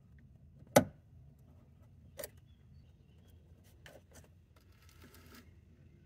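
Small metal clicks and a light scrape as needle-nose pliers work a wire spring clip off the heater's hot/cold air control cable. One sharp click a little under a second in, a smaller one about two seconds in, then a few faint ticks and a brief scrape.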